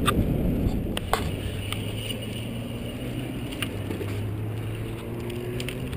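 Muffled wind rumble and rolling noise picked up by a GoPro on a moving recumbent trike, its microphone damped with cotton batting stuffed in the case. A few light clicks come through, and a faint steady low hum sets in about a second in.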